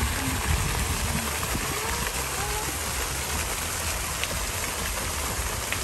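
Garden pond fountain, its jet of water splashing steadily onto the pond surface as an even rushing hiss, over a low rumble and faint distant voices.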